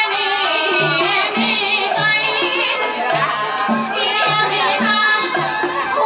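Vietnamese traditional folk music played live: a wavering melody with wide vibrato over a steady line of short low notes.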